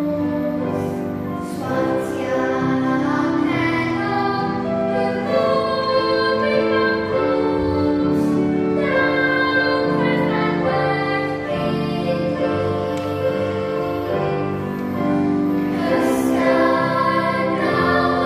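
Children's school choir singing a song together, holding long notes that change pitch every second or so.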